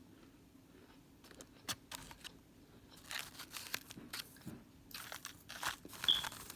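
Crunchy microwaved cornstarch chunks being bitten and chewed close to the microphone: a few sharp cracks, then dense crunching from about halfway through.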